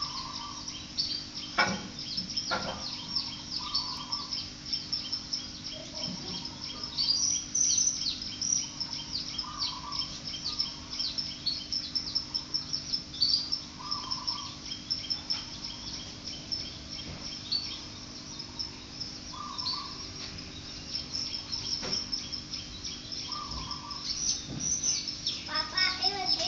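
Birds chirping rapidly and continuously, with a lower call repeating every few seconds, over a faint steady hum.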